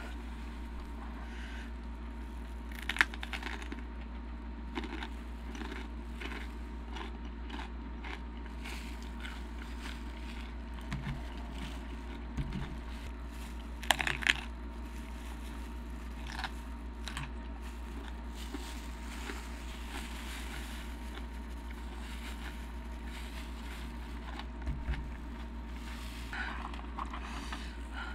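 Close-up chewing and crunching of Takis rolled tortilla chips in cream-cheese-stuffed jalapeños, mostly quiet with sharp crunches about 3 s in, about 14 s in and again near the end. A steady low hum runs underneath.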